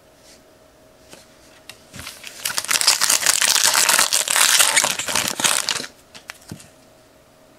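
Foil trading-card pack wrapper crinkling in the hands. Dense crackling starts about two seconds in, lasts about four seconds, then stops, leaving a few faint rustles.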